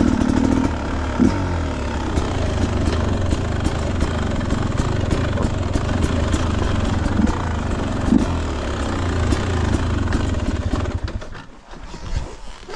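Dirt bike engine running at low, fairly steady revs while riding a rough trail, with frequent short clicks and rattles over it. The engine sound drops away sharply about eleven seconds in.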